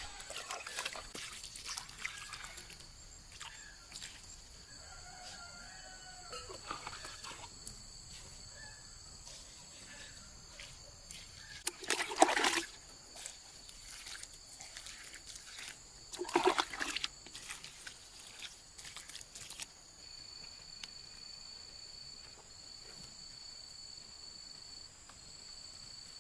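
Water scooped from a plastic bucket with a plastic scoop and poured onto loose soil, heard as splashes and trickles, with two louder pours about twelve and sixteen seconds in. A steady high-pitched drone runs underneath.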